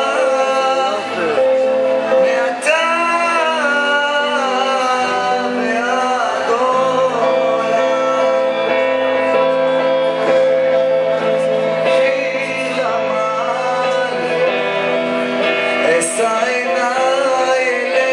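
Live band playing a song: a man sings lead into a microphone over electric guitar, bass guitar and drums.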